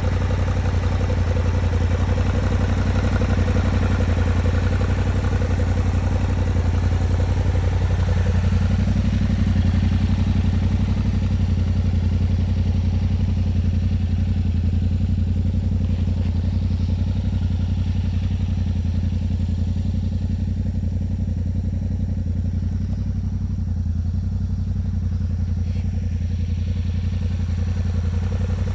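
Yamaha Ténéré 700 adventure motorcycle's parallel-twin engine running steadily, its pitch rising a step about eight seconds in and then holding.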